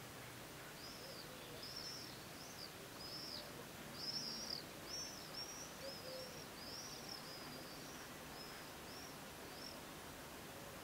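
A small songbird calling: a run of short, high, arched chirps, one or two a second, over a faint background hiss.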